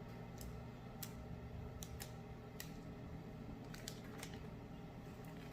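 Faint, scattered light clicks and ticks, about a dozen spread unevenly, over a steady low hum.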